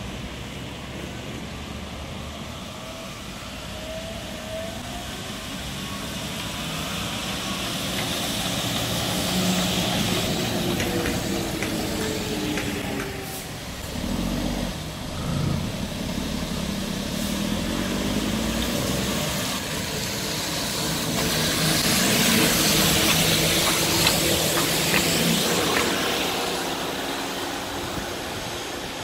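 Road traffic on a rain-wet road: cars and a bus passing one after another, tyres hissing on the wet surface. The sound swells and fades with each pass, loudest a little past the middle and again near the end.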